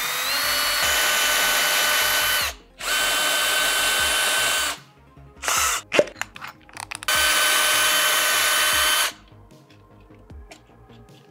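Cordless drill running a 5/8-inch Forstner bit into a wooden post: three runs of about two seconds each, the motor whine rising as it spins up at the start, with a short blip between. Faint clicks near the end as the bit is handled.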